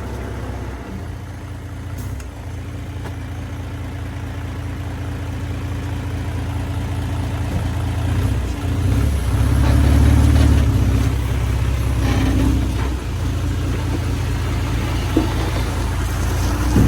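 Heavy diesel engine of earthmoving machinery running steadily, growing louder and heavier under load about halfway through and again a few seconds later.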